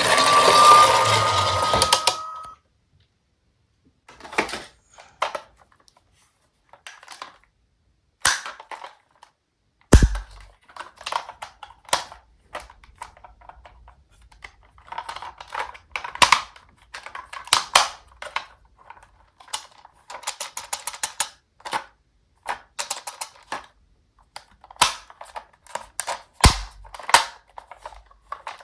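A toy siren wails for about two seconds and cuts off. It is followed by scattered small plastic clicks, clacks and rattles of toy cars being handled, with two heavier knocks.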